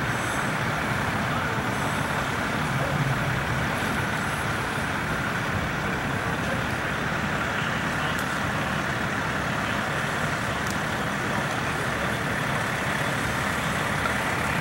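Heavy diesel trucks, a fire engine and a garbage truck, running steadily at idle over a continuous rushing noise.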